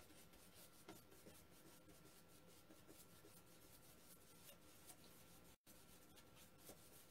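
Faint, scratchy strokes of a paintbrush working paint onto paper, over near silence. The sound cuts out completely for an instant a little past halfway.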